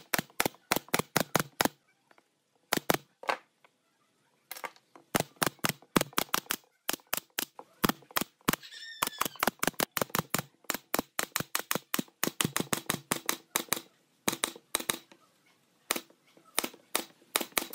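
Pneumatic F30D brad nailer firing brads into wooden slats: quick runs of sharp shots, about four or five a second, broken by short pauses while the gun is moved along the edge.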